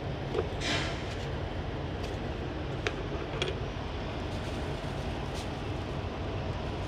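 Steady low rumble of an idling diesel engine. Over it come a few light clicks and a short scrape, like kitchen utensils being handled.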